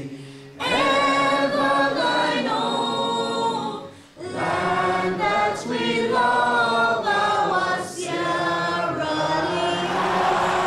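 A standing crowd of men's and women's voices singing together, a slow song in long held phrases, with short breaks about half a second in and about four seconds in.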